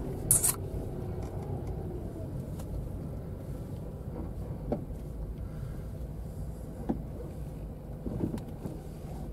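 Steady low rumble of a car heard from inside its cabin, with a short hiss just after the start and a few faint ticks later on.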